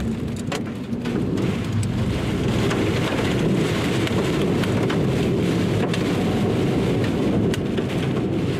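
Heavy rain beating on a car, heard from inside the cabin: a steady, dense low rush with scattered sharp ticks of drops hitting the glass.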